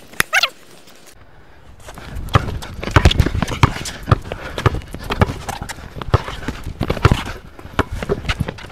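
Basketball dribbled on an outdoor hard court, with irregular sharp bounces and sneaker steps starting about two seconds in.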